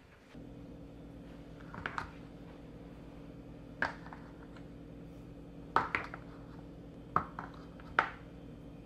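Kitchen containers or dishes being handled and set down, making several sharp clinks and knocks at irregular intervals. Under them runs a steady low hum that starts just after the beginning.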